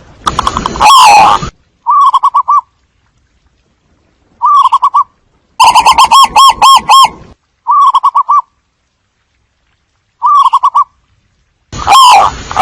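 Zebra dove cooing: about seven loud bursts of rapid, staccato coos, each lasting under a second to about a second and a half, with short silent pauses between them. It is the call used to lure zebra doves in.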